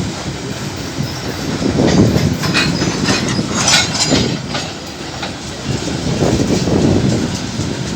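Freight train rolling past close by, a steady low rumble with wheels clacking over the rail joints. A run of sharp metallic clacks with a brief high screech comes in the middle.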